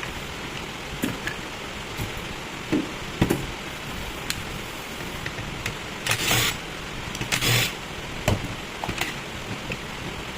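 Scattered clicks and knocks of parts being handled, with two short whirring bursts of a small electric motor, each about half a second long, a little after the middle.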